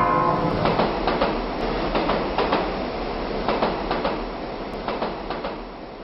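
Passenger train running through a stone-lined tunnel: a steady rumble with irregular clatter of wheels on the rails, echoing off the tunnel walls and growing quieter toward the end.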